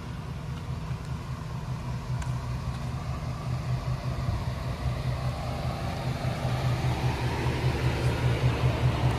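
A motor vehicle's engine running with a low, pulsing drone that grows gradually louder.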